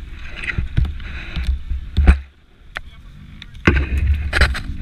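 Beta RR 200 dirt bike's two-stroke engine revving unevenly in short bursts as the bike is wrestled over rough, muddy ground, with sharp knocks and rattles from the bike. A louder, noisier stretch begins about three and a half seconds in.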